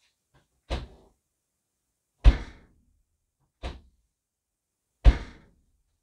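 Ford C-Max tailgate being opened and shut twice: four thuds, a lighter clunk as the latch releases, then a much louder slam, repeated.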